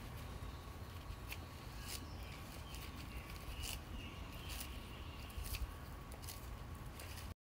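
Lettuce leaves being snapped off and handled, irregular crisp snaps and rustles, over faint outdoor background with a steady faint tone.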